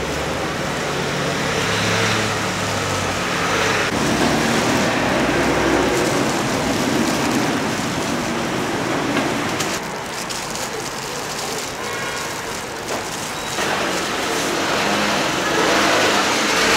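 Hotteok frying in oil on a stall griddle, a steady sizzle, over the low background noise of a busy market.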